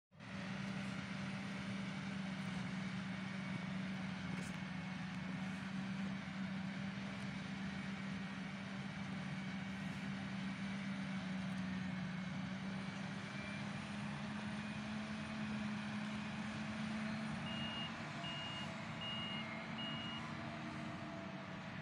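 Self-propelled forage harvester chopping maize for silage, with the tractor hauling its trailer alongside: a steady engine drone over a wide rushing noise. Near the end a high beeper sounds four times, evenly spaced.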